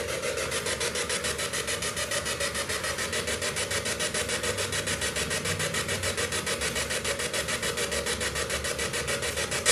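Spirit box sweeping through radio stations: harsh static chopped into a fast, even stutter of about seven short bursts a second.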